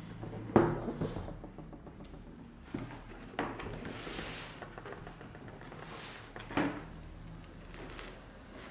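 Unpacking sounds from a cardboard box: a sharp knock about half a second in, then scattered lighter knocks, a brief rustle of packaging near the middle and another knock later on.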